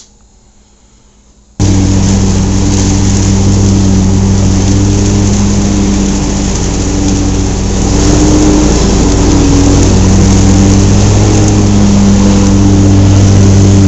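Zero-turn riding mower's engine running steadily at one even pitch. It sets in abruptly, at full loudness, about a second and a half in.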